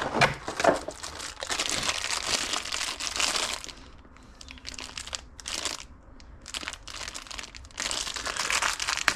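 Packaging from a door lever set being handled and crinkled while it is unpacked: two long rustling spells, with scattered clicks between them.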